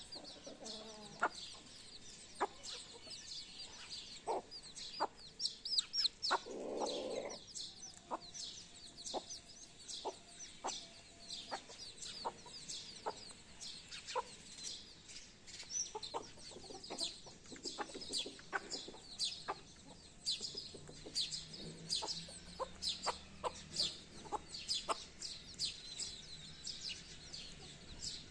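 A hen clucking in short single clucks, roughly one a second, while a brood of chicks peeps continuously in high, quick cheeps. About seven seconds in there is one longer, louder low call.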